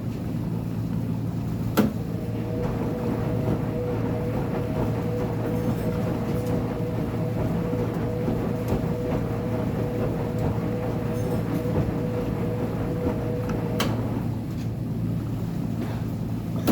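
Uni-Mac UniMat 35 commercial front-load washer running mid-cycle: a steady motor hum and whine. A sharp click comes about two seconds in, where the whine starts up, and another near the end, where it cuts out.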